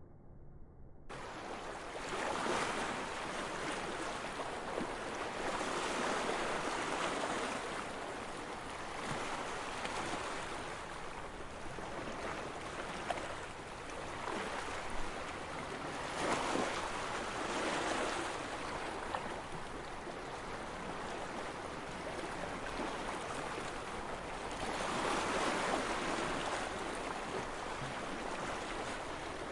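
Mediterranean Sea waves washing in, swelling and easing every few seconds.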